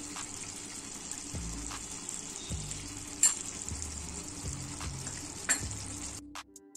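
Chicken pieces in a creamy curry gravy sizzling steadily in a frying pan, with two sharp pops about three and five and a half seconds in. The sizzling stops shortly before the end.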